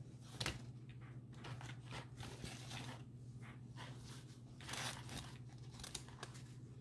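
Small embroidery scissors snipping through fabric in short, irregular cuts, with the fabric rustling as it is turned and handled.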